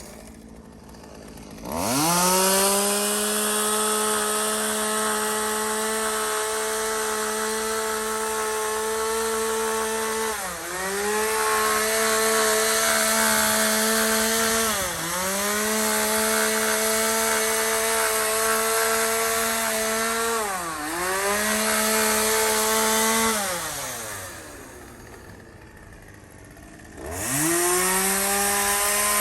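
Chainsaw engine driving a brush-cutter attachment, revved up from idle to a steady high whine. Its speed dips sharply and recovers three times, then it drops back to idle and revs up again near the end.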